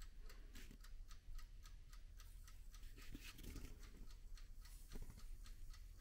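Green chili skins faintly crackling and ticking as they blister under a toaster oven's glowing heating element: a quick, irregular string of small clicks.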